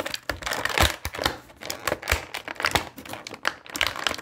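Clear plastic packaging crackling and crinkling in quick, irregular sharp clicks as an action figure is worked out of it.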